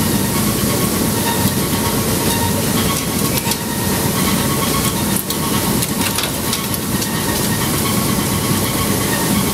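Flip-flop screen in an RDF waste plant running: a loud, steady mechanical rumble with a fast rattle as the shredded plastic waste is shaken across the screen deck, with a few sharper clicks in the middle.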